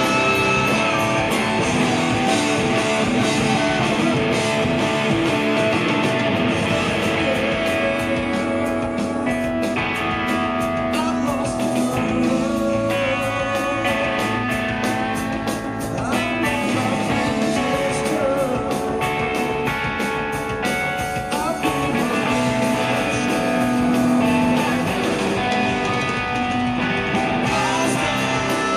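Live rock band playing: electric guitar over drums, with a man singing.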